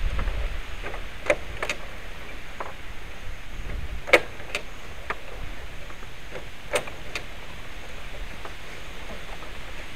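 Small Honda motorbike running at low speed on a dirt trail: a low rumble with sharp clicks and knocks, in pairs, about three times. The loudest knock comes about four seconds in.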